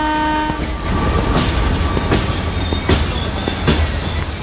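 Passenger train moving at a station platform: a low rumble with a wheel clack about every three-quarters of a second, and a high wheel squeal coming in about halfway. A steady held tone cuts off just under a second in.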